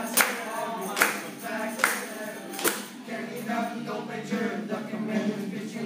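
Voices singing in a group performance, with sharp percussive hits on a steady beat a little faster than one a second; the hits stop about three seconds in while the singing carries on.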